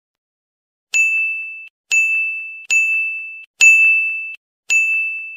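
A bell-like ding struck five times about a second apart, each a single high tone that rings and fades. Nothing sounds for about the first second.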